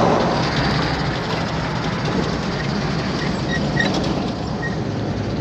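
Mitsubishi Montero driving, with steady engine and road noise heard inside the cabin.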